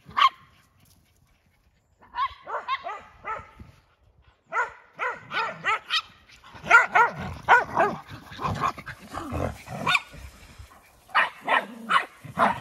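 Dogs barking and yipping in play, in quick runs of short, high barks broken by brief pauses, with a low rumble under the busiest stretch in the middle.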